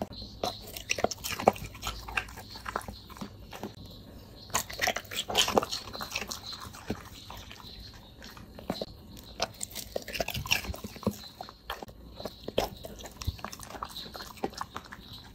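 A dog chewing and crunching whole quail eggs in their shells, a close run of irregular crunches and clicks that is busiest about five seconds in.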